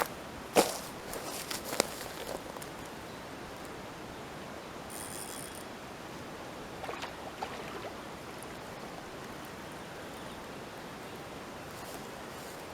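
Steady outdoor background hiss on the riverbank, with a few sharp clicks about half a second and two seconds in and a brief high rasp about five seconds in.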